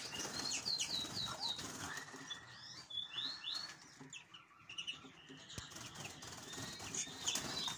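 Greenfinches in an aviary flight, wings flapping as they fly between perches, with short high chirps coming in little runs.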